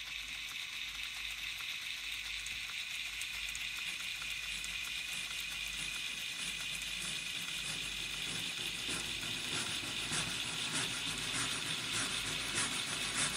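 Wooden ROKR model steam traction engine running with its chimney venting vapour: a steady hiss, with light clicking from the mechanism that grows more frequent in the second half.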